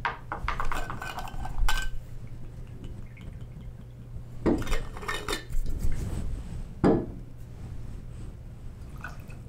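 Bar tools clinking as ginger liqueur is measured into a metal jigger and poured into a metal cocktail shaker: scattered clinks of metal and glass, with a firm knock about seven seconds in as something is set down on the bar.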